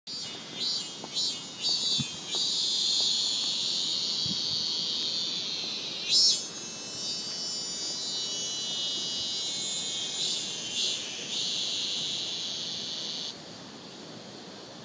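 High-pitched buzzing chirr, pulsing a few times at first, then steady, and cutting off suddenly near the end.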